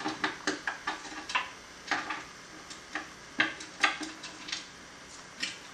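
An African grey parrot's bottle cap and beak knocking against a kitchen cabinet: a string of sharp, irregular clicks and taps, two or three a second with short pauses between.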